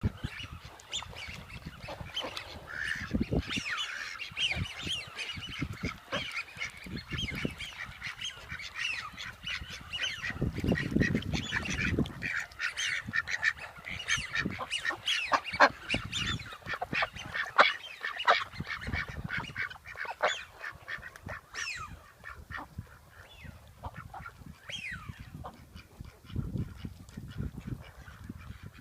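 A pair of domestic geese honking repeatedly, many short calls in quick succession.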